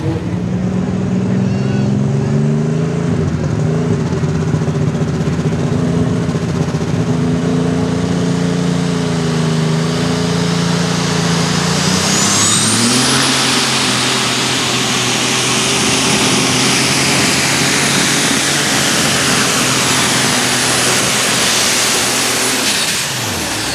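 A Chevrolet pulling truck's engine runs hard under load on a pull. Then a Case-bodied pulling tractor's engine runs at full throttle with a high, steady whine above it, winding down near the end.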